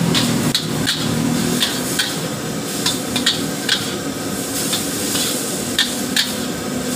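A metal ladle scrapes and clinks against a steel wok about twice a second, irregularly, as rice vermicelli is stir-fried over a steady sizzle.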